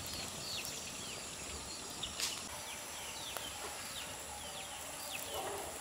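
A small bird calling with a run of short falling chirps, about two a second, over a steady background hiss and a faint high insect drone. A single sharp click comes about two seconds in.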